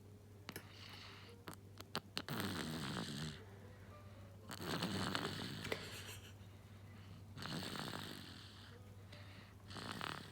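A three-and-a-half-month-old baby snoring noisily while sleeping on his back: four snores, about one every two and a half to three seconds.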